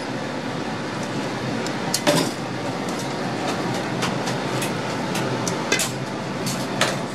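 Metal tongs clinking against stainless steel bowls while shredded onion and vegetables for kakiage are portioned onto a scale: a few sharp clinks, the loudest about two seconds in, over a steady background hum of the shop.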